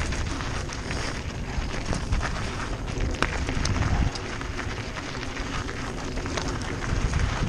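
Mountain bike descending fast over a loose, stony trail: a heavy low rumble of wind on the microphone, with tyres crunching over gravel and many sharp clicks and knocks from stones and the rattling bike. The rumble eases slightly about four seconds in.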